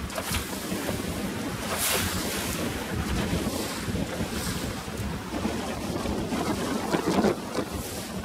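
Strong wind buffeting the microphone over a choppy sea, with waves splashing; gusts swell about two seconds in and again near the end.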